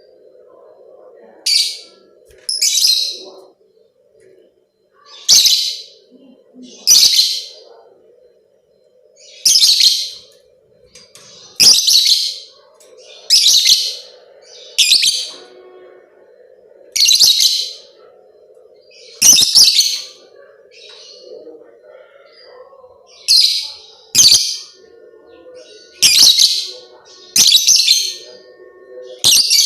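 Lovebirds giving short, shrill, high-pitched calls again and again, about every one to two seconds, over a faint steady low hum.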